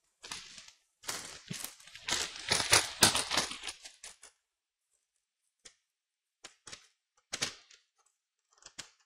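Clicking and rustling of small laptop parts and cables being handled for about four seconds, then a few separate light clicks.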